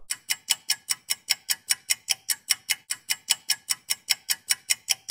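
Clock-ticking sound effect, quick even ticks about five a second, serving as a quiz timer while the viewer searches the frozen picture.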